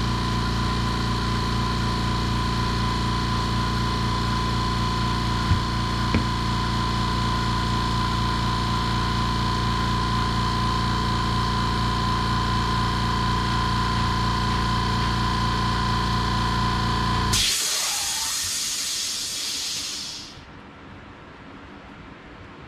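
California Air Tools air compressor running with a steady electric hum, then the motor shuts off about 17 seconds in and a hiss of venting air follows for about three seconds before fading out: the compressor has reached its cut-out pressure and is unloading. Two light knocks come about five and six seconds in.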